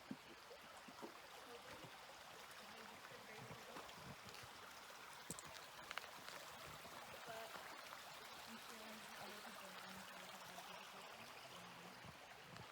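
A creek running faintly: a soft, steady water hiss with a few light ticks.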